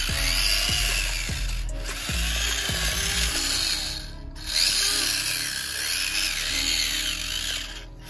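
Small electric motor of a homemade remote-control model tractor whining, rising and falling in pitch as it drives and pulls through mud, over background music.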